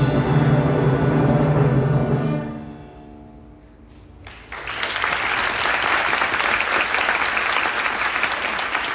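An orchestra holds its final chord, with a strong low note under it, and lets it die away over a second or so. After a short hush, the audience breaks into steady applause about four seconds in.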